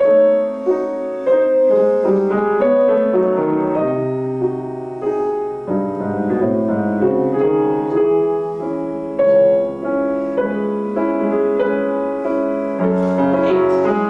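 Grand piano playing a classical passage of flowing notes and chords.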